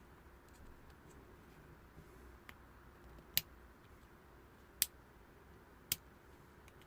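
A few small, sharp plastic clicks spaced about a second apart, as the retaining tabs on the back of a VW Golf door lock/unlock switch are pried open.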